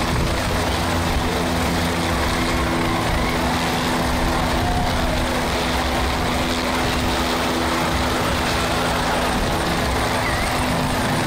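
Light single-engine helicopter hovering low overhead: a steady, unbroken rotor and turbine noise with a constant engine hum under it.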